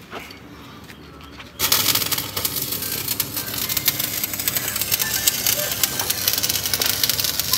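Electric arc welding on a broken leaf spring: the arc strikes suddenly about one and a half seconds in and keeps crackling steadily.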